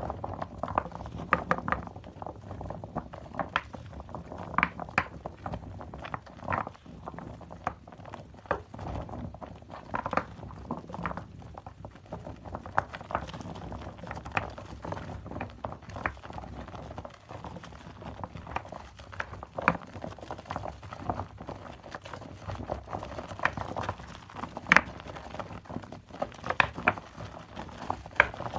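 Wet soap lather being squeezed and worked by hand: irregular wet squishes and small crackling pops of foam, with a louder pop about 25 seconds in.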